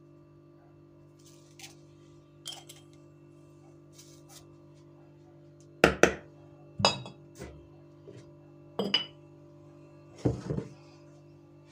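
A metal teaspoon clinking and tapping against a ceramic jar and the bowl as salt and sugar are spooned into kefir for dough: one light clink early, then a run of sharp clinks and taps from about halfway through.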